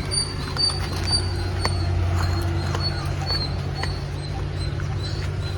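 Short, high-pitched chirping calls from small animals, repeated every so often over a steady low hum.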